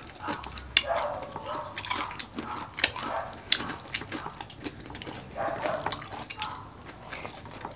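Mukbang eating sounds: chewing and mouth smacking, with frequent sharp, irregular clicks.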